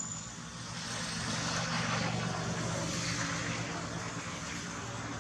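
A steady engine hum with a rushing noise that swells about two seconds in and then eases off.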